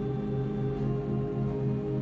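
Church organ playing sustained chords, with a low note pulsing about three to four times a second.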